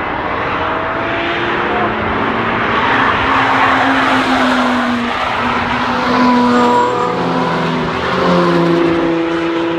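BMW 3 Series saloon driven hard through a race-track corner, its engine running under load with tyre noise as it passes close by. Near the end a second car's engine comes in as it approaches.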